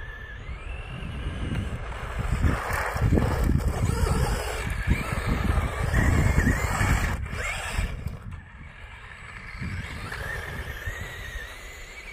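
Radio-controlled model car running on asphalt, its motor whine rising and falling in pitch as it speeds up and slows, loudest as it passes close in the middle. Wind buffets the microphone, giving a heavy low rumble.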